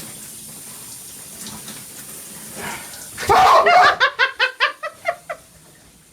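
Water running with a steady hiss, then about three seconds in a burst of laughter: a quick string of 'ha' bursts that fades away over about two seconds.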